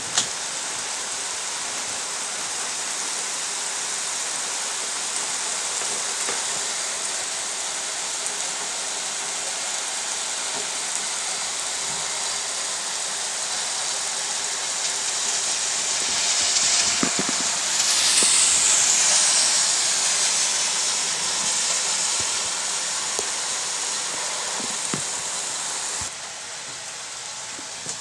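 Steady rain falling with a loud, even hiss and scattered drop ticks. About two-thirds of the way through, a vehicle swishes past on the wet road, swelling and then falling away. The hiss drops to a softer level near the end.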